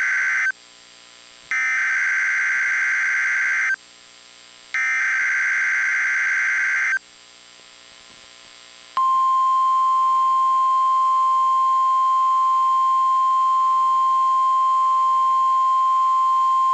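Emergency Alert System SAME header: buzzy digital data bursts about two seconds long with a second's gap between them. The first burst ends half a second in and two more follow. About nine seconds in, the steady 1050 Hz NOAA Weather Radio alert tone starts and holds unbroken, marking the start of an emergency alert.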